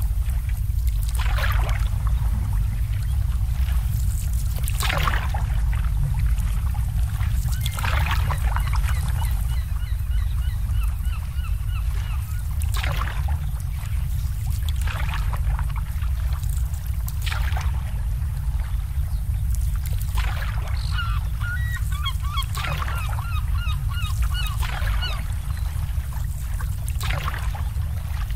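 Water lapping and slapping against moored boats every couple of seconds over a steady low rumble, with a bird calling twice in quick runs of short, high notes.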